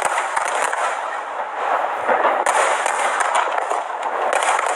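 Display fireworks going off in a dense, continuous run of rapid bangs and crackles.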